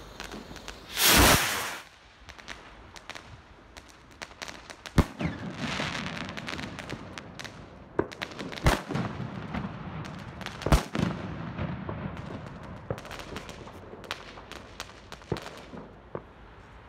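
A Lonestar Sternschnuppen F3 firework going off: a loud whoosh lasting about a second as it launches, then a sharp bang about five seconds in followed by crackling. Two more sharp bangs come a few seconds later, and the crackle thins out after them.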